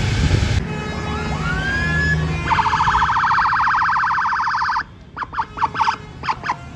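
A bus's Basuri musical air horn playing a telolet-style tune. It starts with a rising note, then gives a fast warbling tone for about two seconds, then a quick run of short toots. Engine and road rumble fill the first half-second.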